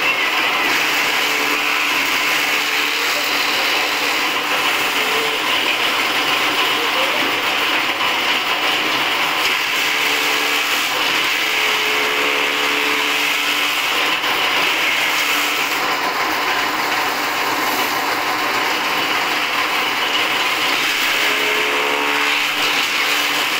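Agrimate chaff cutter driven by a 3 hp single-phase electric motor, running steadily while its blades chop green fodder being fed in by hand.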